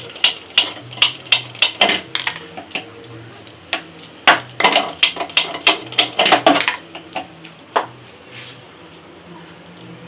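Hand-held spark gas lighter clicked over and over at a gas stove burner to light it: a quick run of sharp clicks, a pause of about two seconds, a second denser run, then one last click about eight seconds in.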